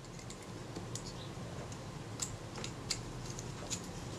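A handful of light, scattered clicks and small scrapes from the metal parts of a Kodak Retina IIIc as a shroud is slid over its compressed spring-loaded buttons and the front section is handled.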